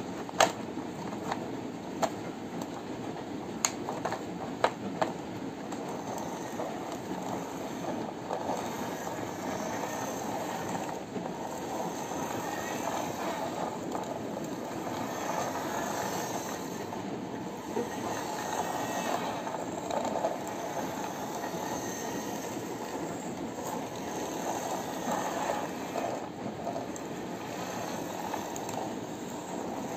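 Plastic wheels of a toy ladder fire truck rolling across a hard floor as it is pushed by hand, a steady rolling noise. A few sharp plastic clicks come in the first few seconds as the toy is handled.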